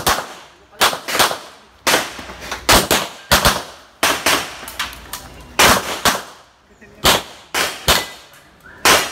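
A string of gunshots, about a dozen, fired at an irregular pace, often two in quick succession, each with a short echo.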